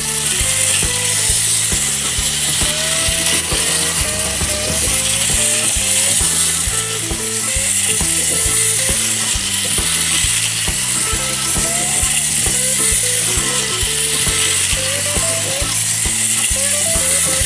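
A three-car wind-up capsule Plarail E7 series Kagayaki toy train running around a plastic oval track. Its spring-driven gearbox keeps up a steady, ratchety buzzing whir with small regular clicks.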